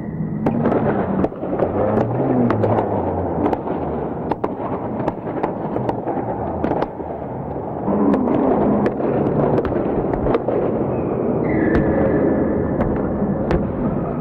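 Indoor ball game in a sports hall: an echoing din of play with many sharp knocks and pops, and a few shouts from the players.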